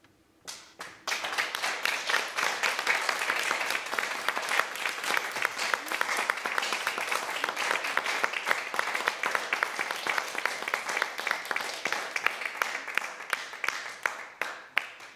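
Applause after a sung aria: a couple of first claps, then steady clapping that thins out near the end.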